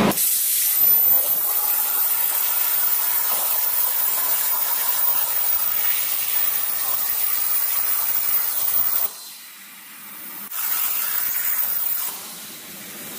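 CNC plasma cutter torch cutting metal plate: a steady, loud hiss of the plasma arc. It cuts out about nine seconds in, comes back briefly, and drops again near the end.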